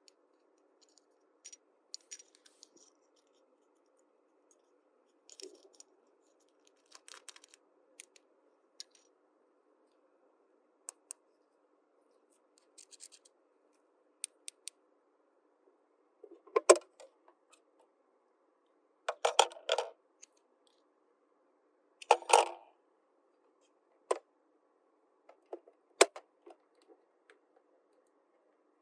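Small plastic toy pieces being handled: scattered light clicks and taps, with a few louder clatters in the second half.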